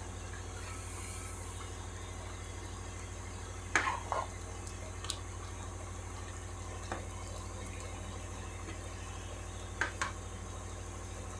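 A pan of vegetable broth simmering on the stove over a steady low hum, with a few short sharp clicks about four, five, seven and ten seconds in.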